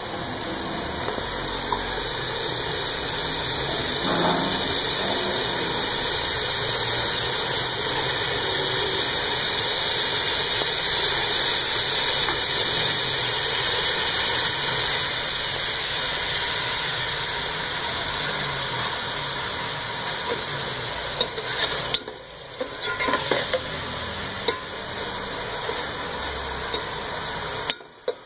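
Chopped onions sizzling steadily in hot oil in a metal pot, with a slotted metal spatula stirring and now and then scraping against the pot. The onions are being fried to a light pink, the first browning stage of the onion base.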